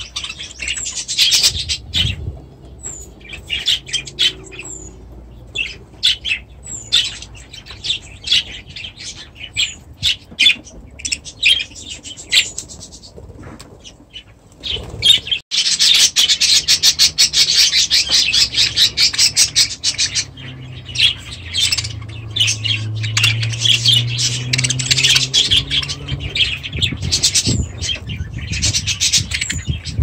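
Small aviary birds, finches among them, chirping and calling in quick short notes, with a short falling call repeated every couple of seconds. About halfway through the sound cuts off abruptly and gives way to a denser, louder chatter of many birds at once.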